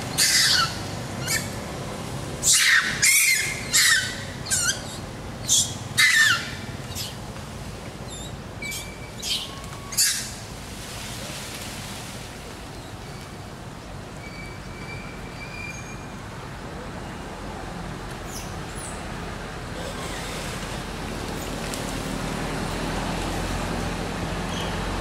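Macaques squealing: about a dozen loud, shrill calls, each falling in pitch, packed into the first ten seconds. After that comes a steady outdoor background with a few faint bird chirps, and a low rumble grows near the end.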